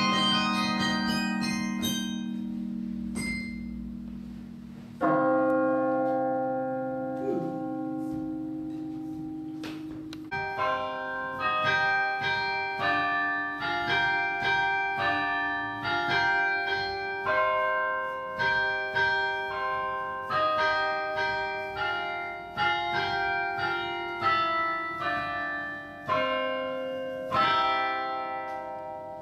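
Carillon bells playing music: a quick run of high notes, two long chords left to ring and die away, then from about a third of the way in a steady tune of struck chords, roughly one a second.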